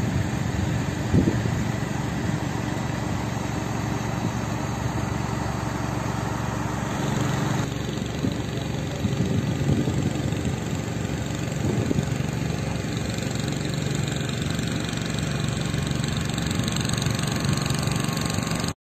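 An engine idling steadily with a low hum and a haze of outdoor noise, cutting off abruptly near the end.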